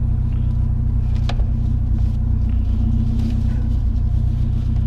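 Truck engine idling steadily, with a single sharp click about a second in.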